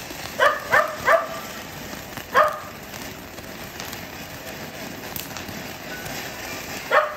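Ground fountain firework hissing steadily as it sprays sparks, while a dog barks over it: three quick barks about half a second in, one more about two seconds later, and a last one near the end.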